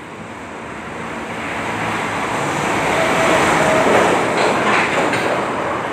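A heavy vehicle passing close by: a broad, steady noise that swells over about four seconds and then eases slightly.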